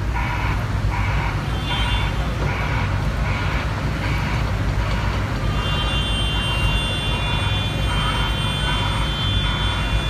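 Compact excavator's diesel engine running steadily, with a warning alarm beeping about once every second for the first half. A high steady whine joins from about halfway.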